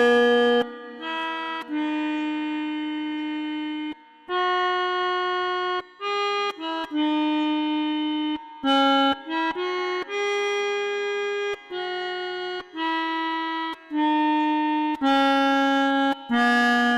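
Basuri V3 telolet bus horn playing a tune: a run of separate multi-tone horn notes that switch on and off sharply, some quick and short, others held for a second or two.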